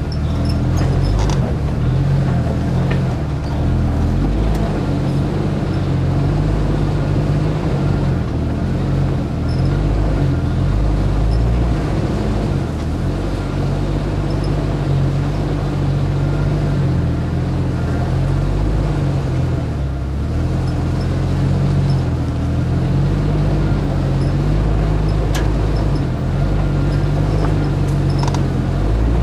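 Off-road 4x4's engine running steadily at low revs as the vehicle crawls over a rough trail, with a few faint clicks and knocks.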